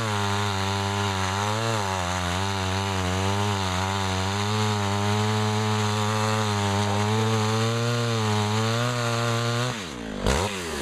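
Sears Suburban Craftsman 3.75 two-stroke chainsaw running steadily, its engine speed wavering a little, then shut off about ten seconds in: the note drops quickly and dies.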